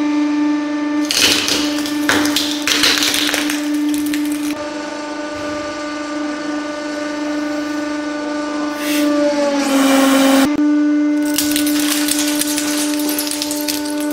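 Hydraulic press pump whining steadily at one pitch, sagging briefly as it takes load, while the ram crushes objects: a dovetailed wooden box cracking and splintering about one to four seconds in, then loud crunching and cracking again from about eleven seconds in.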